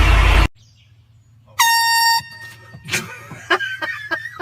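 An air horn gives one short, loud, steady blast about a second and a half in, lasting about half a second. A loud noise cuts off abruptly just before it, and after it comes a quick run of short pitched pulses, about four a second.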